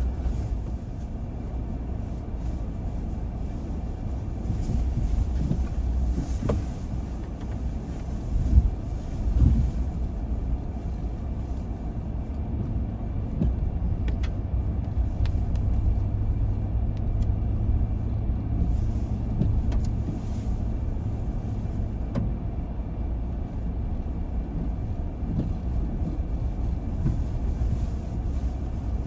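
Car driving along a road, a steady low rumble of tyres and engine heard from inside, with two thumps about nine seconds in and a steady low hum through the middle.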